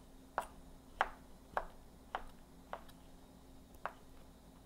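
Cleaver slicing shiitake mushrooms on a cutting board: about six short knocks of the blade on the board, roughly every half second, with a longer gap before the last.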